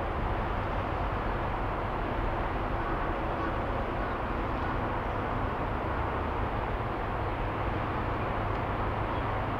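DF200 diesel-electric freight locomotive running as it slowly approaches, hauling oil tank wagons: a steady low engine rumble.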